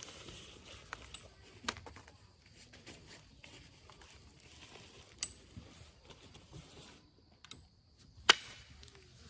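Onondaga chert being pressure-flaked with an Ishi stick: scratching and light ticks of the flaker tip on the stone's edge, then one sharp snap a little after eight seconds in as a flake pops off. Crickets chirp faintly near the end.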